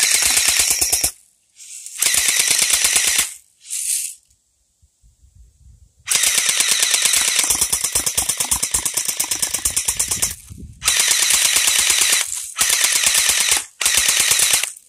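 Electric airsoft Uzi firing full-auto in bursts, a rapid, even rattle of its motor-driven gearbox cycling with each shot. There are about seven bursts with short pauses between them, the longest about four seconds.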